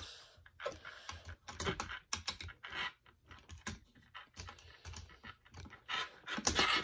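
Irregular light clicks and taps of plastic parts being handled as a ring light and its stand are fitted together, with some rustling near the end.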